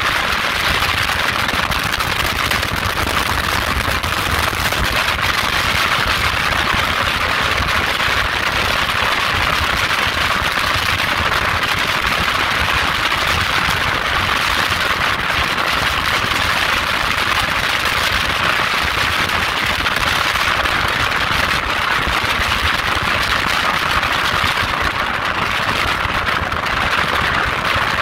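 Motorboat running at high speed: a steady engine drone under an unbroken rushing noise.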